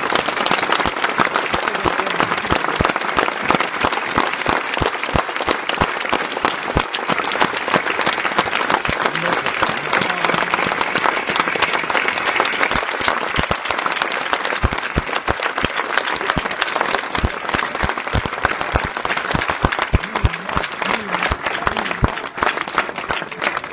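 Crowd applauding: long, dense, sustained clapping that thins a little in the second half.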